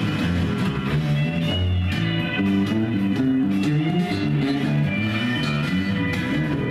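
Blues-rock song playing, with guitar over a moving bass line and a steady beat.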